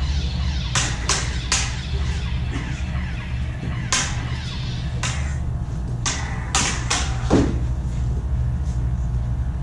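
Combat LED lightsabers with sound boards humming steadily in the low range, broken by about eight sharp clashes as the blades strike, a few in the first two seconds and more between about four and seven seconds in.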